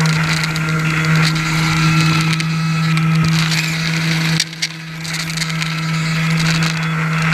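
HobbyKing Swamp Dawg RC airboat's electric motor and propeller running, a steady hum with a noisy rush over it that dips briefly about four and a half seconds in before picking up again.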